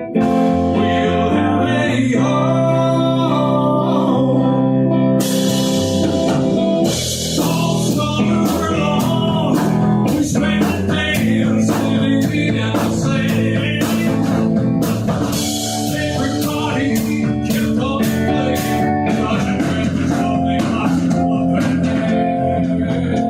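A band plays a rock song led by guitar, with the drum kit and cymbals coming in about five seconds in.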